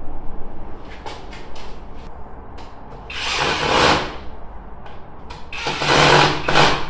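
Cordless drill-driver run in two short bursts of about a second each, with light clicks and knocks of tool handling before them.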